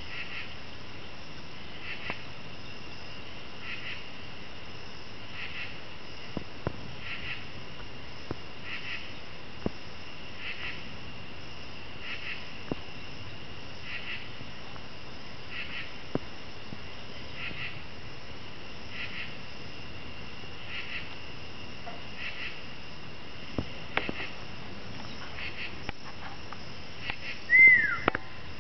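Night insects chirping in a steady pulse about every second and a half, with a few faint, sharp single knocks, the clearest about 24 seconds in, which the recorder likens to a piece of wood hitting a tree. Near the end comes a loud short whistle falling in pitch.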